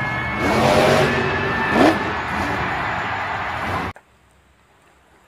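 Monster truck engine revving hard, with sharp rises in pitch about half a second and two seconds in. The sound cuts off suddenly about four seconds in, leaving near silence.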